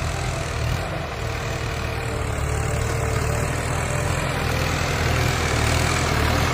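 Tractor engine running steadily while ploughing, with a low drone that grows gradually louder.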